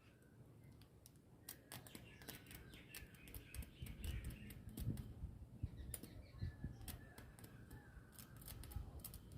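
Faint, irregular crackling and clicking of a small homemade carbon-arc welder, a heater coil in series with a carbon tip, fusing the twisted copper winding leads of a fan stator.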